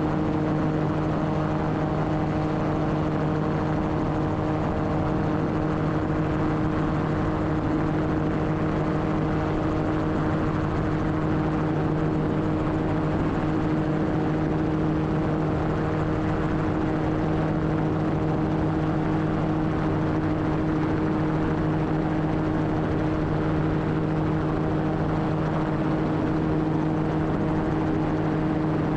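Gyroplane engine and pusher propeller running steadily in flight, one even drone that holds its pitch throughout.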